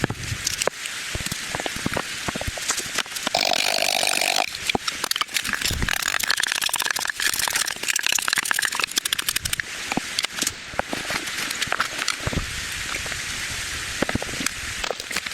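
Steady rain, with many sharp ticks of drops striking surfaces over a continuous hiss.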